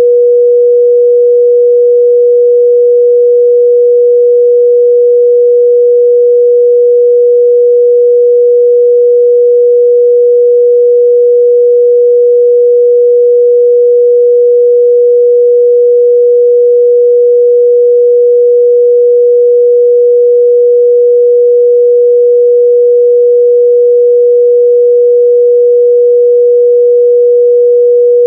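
A steady, loud 484 Hz sine-wave test tone, a single pure pitch held without change.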